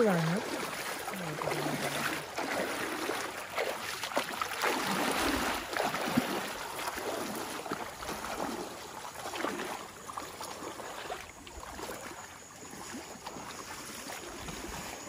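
Irregular splashing and rustling of someone moving through shallow water and wet grass along a stream's edge, in uneven scuffs with no steady rhythm, fading somewhat in the second half.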